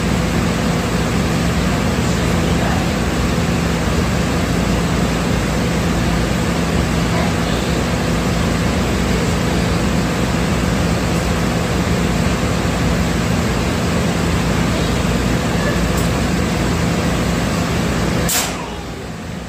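Grooming-salon pet dryer blower running steadily: a loud rush of air over a low motor hum. It dips briefly near the end.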